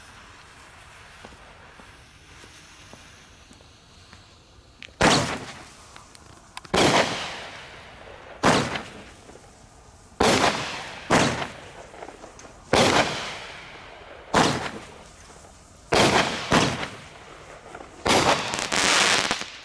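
World Class 'Gator' five-shot 200 g fireworks cake firing: a low hiss for about five seconds, then about ten sharp bangs every one to two seconds as the shots launch and burst, ending in a longer, drawn-out burst.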